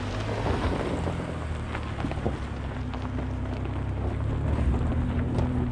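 2022 Chevy Colorado ZR2's 3.6-litre V6 running steadily, with the tyres crackling and crunching over rocks and gravel.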